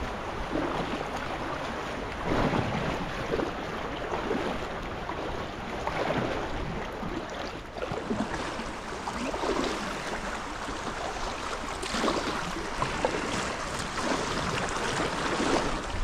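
Whitewater river water rushing and splashing around a packraft, a steady noise with irregular louder splashes, with some wind on the microphone.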